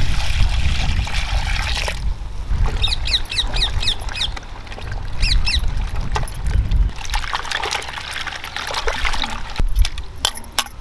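Water poured and splashing into a vessel of cut elephant foot yam in curd for soaking, with more splashing of the water later. Twice a bird chirps in quick runs of short notes.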